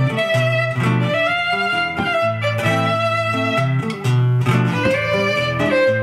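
Violin playing a melody of held notes with some slides over acoustic guitar accompaniment, during an instrumental break in a song.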